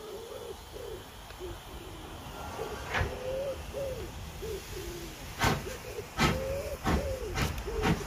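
A saddle-tank steam locomotive moves slowly. A few sharp exhaust beats from about three seconds in grow louder, while a bird calls in a wavering, broken series of notes.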